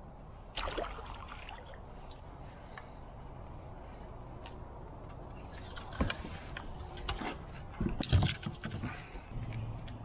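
Scattered clicks, knocks and scrapes of fishing gear and landing net as a bass is netted from a kayak, with the loudest knocks and splashes about eight seconds in, over a steady low background hiss.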